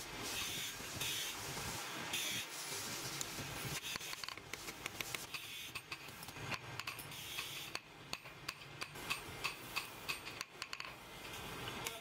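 Hand file rasping in repeated strokes on metal, then small clinks and taps of steel and brass knife parts on a steel block, with light hammer taps in the last few seconds.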